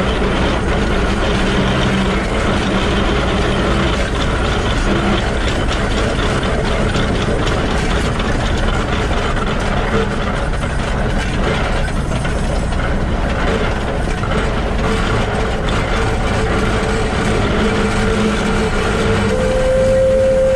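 Close-up sound of the Shay geared steam locomotive SL-31's truck running: bevel gears meshing and wheels on the rails in a steady, dense mechanical clatter. A steady high tone grows louder near the end.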